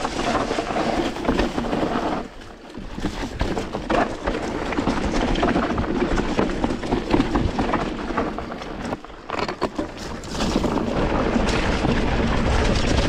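Mountain bike riding a rough trail section: tyres on dirt and rock with the bike rattling and knocking over the bumps, and wind buffeting the microphone. It eases briefly about two seconds in and again near nine seconds.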